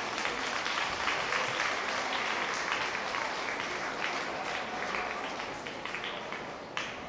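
Audience applause: dense clapping that slowly dies down, with one sharp knock near the end.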